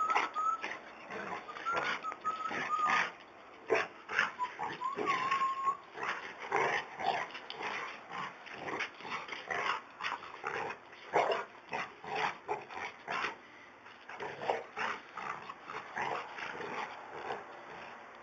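Two dogs, a boxer and a golden retriever, play-fighting: a dense, irregular run of short rough vocal noises and scuffles, with a thin high whine now and then in the first six seconds.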